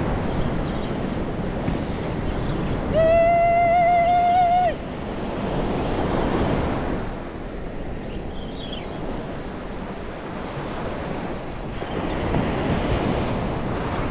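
Surf breaking and washing up a sandy beach, with wind buffeting the microphone; the waves swell and fade. About three seconds in, a loud, slightly wavering high-pitched held tone sounds for under two seconds.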